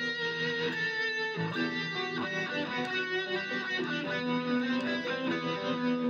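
Electric guitar played through an effects chain with amp, delay and reverb, picking a melodic line of single notes that ring into one another.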